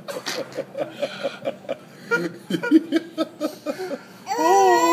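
People laughing in quick, rhythmic bursts. Near the end comes one long, high-pitched wail from a baby who has just eaten wasabi.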